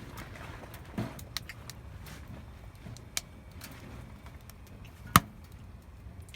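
Wood fire crackling, with scattered small pops and a few sharper snaps, the loudest about five seconds in.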